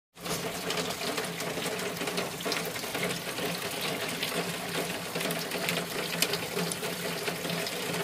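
Steady heavy rain, a dense hiss with many sharp drop clicks close by. A faint low hum that comes and goes runs underneath it.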